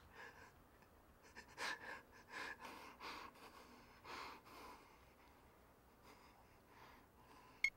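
A man's faint, irregular breathing, a handful of soft breaths, with one short sharp click near the end.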